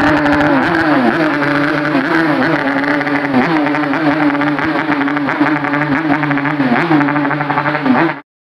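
Two-stroke motorcycle engine revving hard and crackling, its pitch dipping and climbing back every second or two as the throttle is worked. It cuts off abruptly near the end.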